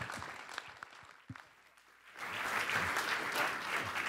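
Audience applauding: scattered clapping thins out about a second in, then a fuller round of applause swells up about two seconds in.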